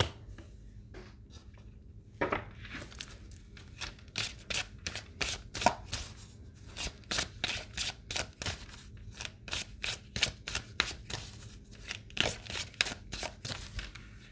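A deck of cards being shuffled by hand: a quick, irregular run of crisp card clicks and flicks, several a second, starting about two seconds in.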